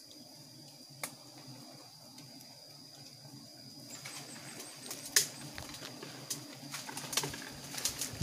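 Dry twigs and leaves crackling and snapping as someone moves through brush, starting about halfway and irregular, with a few sharper snaps, over a steady low hum and a steady high-pitched tone.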